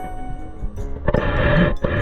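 Background music, growing fuller about a second in.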